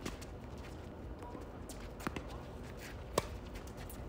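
Tennis balls struck by rackets during a doubles rally: two sharp pops about a second apart, the second louder.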